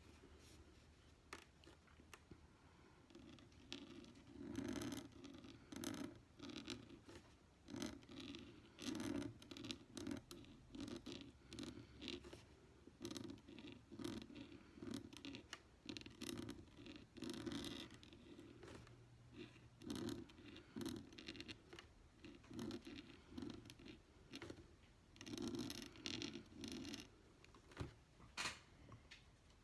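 Brause 511 pointed steel dip-pen nib scratching across envelope paper in many short, irregular strokes as it writes calligraphy letters, faint throughout.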